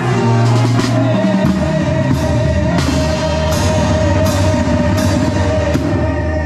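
Banda sinaloense music: a tuba bass line and held brass notes, with the tambora bass drum struck with a mallet and its mounted cymbal crashing about every 0.7 s.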